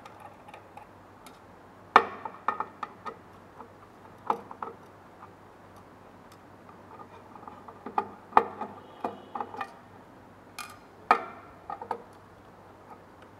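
Small sharp metallic clicks and taps in scattered clusters as a long screwdriver loosens the screws of a print head adapter board on a UV printer carriage's metal plate.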